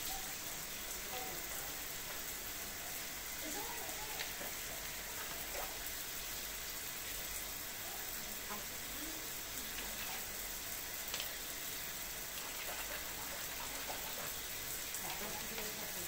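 Kitchen faucet's spray head running, a steady hiss of fine streams of water falling into the sink basin.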